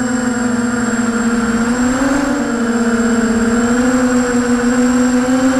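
Brushless motors and propellers of an Emax 250-size FPV racing quadcopter in flight, heard through its onboard Mobius camera's microphone: a loud, steady whine whose pitch drifts gently up and down with throttle. A thin, steady high tone runs above it.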